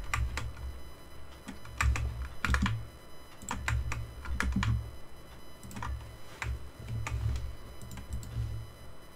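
Computer keyboard keys clicking at an irregular pace as shortcut keys are pressed, with dull low thuds in between.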